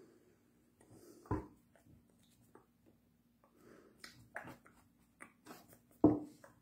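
Scattered small taps, smacks and breathy mouth noises from a person signing without speaking, with two sharper knocks, one about a second in and a louder one near the end. A steady low hum runs underneath.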